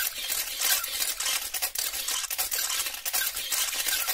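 Dishes and cutlery clinking and scraping in a steady clatter of small, sharp clicks.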